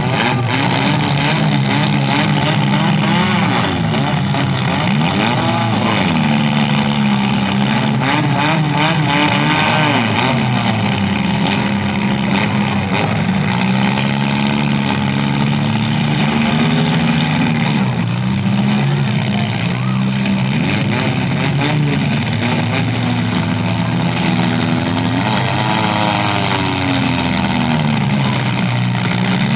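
Engines of several compact derby cars running at once, revving up and down over one another, their pitches rising and falling as the cars manoeuvre in the pit.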